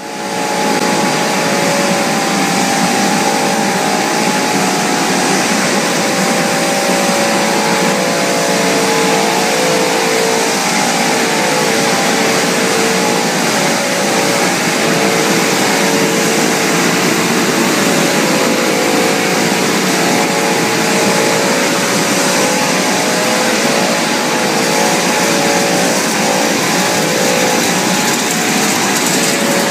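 Twin-screw food extruder production line running: a steady, loud mechanical hiss and hum with several steady motor tones held through it.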